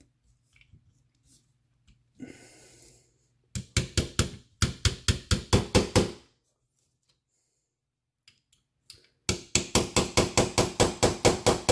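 Small hammer tapping a pin back into the frame of a CZ P10 F pistol, in two runs of rapid light strikes, several a second. The first run comes about four seconds in and the second near the end.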